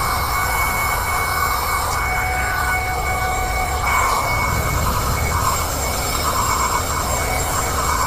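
Autofy Dusto 120 W handheld car vacuum cleaner running with a steady whine as its crevice nozzle sucks dust off a car's carpeted floor mat.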